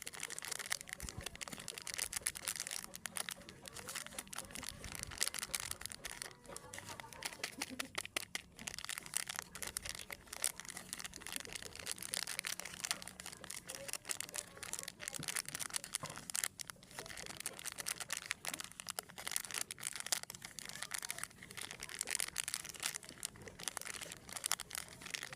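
Plastic snack wrappers crinkling continuously as they are handled, a dense crackle of small clicks.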